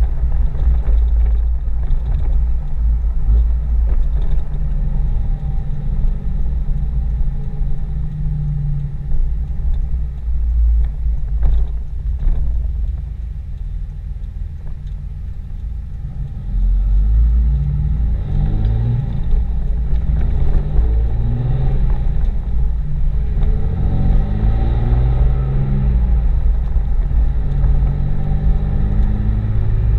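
5.9-litre Cummins inline-six turbo diesel of a 2007 Ram 2500, heard from inside the cab: a steady low rumble while cruising. About halfway through it goes quieter for a few seconds during a gear change. It then comes back louder, rising in pitch several times as the truck pulls through the gears of its G56 six-speed manual, shifted without the clutch.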